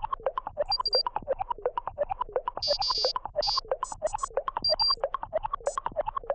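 Electronic synthesizer music: a fast, bouncy run of notes, about six a second, with high bleeping tones over the top.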